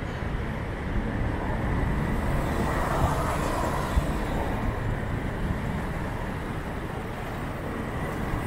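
Steady road traffic noise while driving through town streets: a low engine and tyre rumble, with a short knock about four seconds in.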